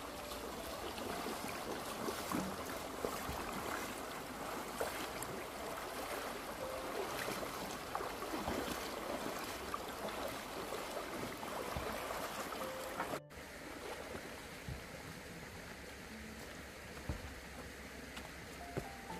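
Shallow stream rushing over stones, with splashing as people wade through it. About thirteen seconds in the sound cuts to a quieter, more distant stream with a few scattered knocks.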